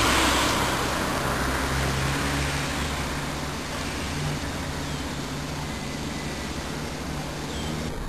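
Street traffic noise: a vehicle's rushing sound, loudest at first and slowly fading, over a low steady engine hum.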